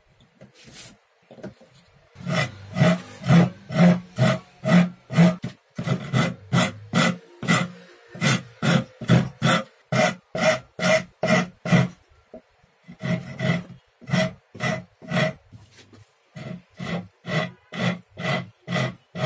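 Hand file rasping across the wooden edge of a saw-handle blank held in a vise, in steady push strokes about two a second, with a few short pauses between runs of strokes.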